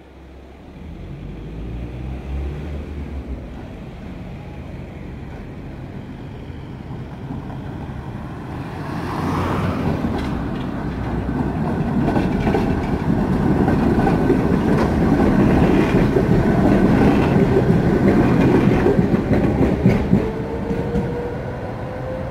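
Tatra KT8D5 articulated tram passing close by across the junction's tracks, its wheels rumbling and clacking over the rail crossings. It builds up and is loudest about two-thirds of the way through, and a rising whine sets in near the end.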